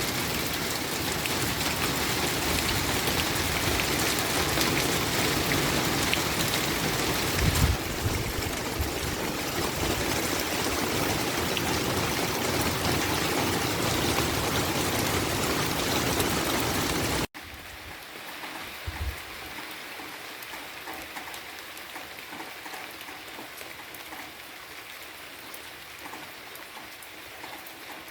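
Steady rain falling, a dense even hiss that cuts abruptly about two-thirds of the way through to lighter, quieter rain with single drops heard apart, and a couple of brief low thuds.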